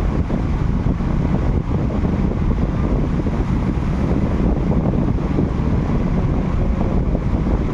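Steady, loud low rumble of wind buffeting the microphone, flickering constantly without a break.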